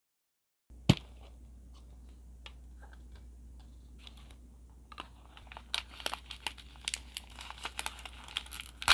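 Plastic wrapping of a Mini Brands Create toy ball being handled and torn open: a sharp knock about a second in, then scattered clicks and crinkling that turn into busy crinkling and tearing in the second half.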